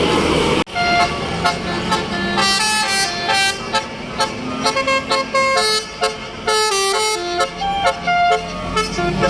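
Tour bus 'telolet basuri' musical horn playing a quick melody of short stepped notes. It starts abruptly after a brief break less than a second in.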